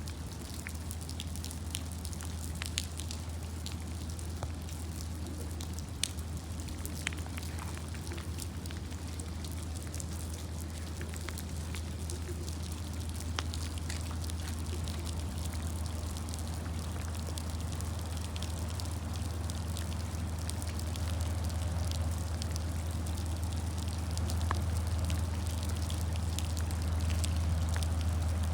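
Steady rain with scattered drops ticking close by, over a steady low rumble that slowly grows louder.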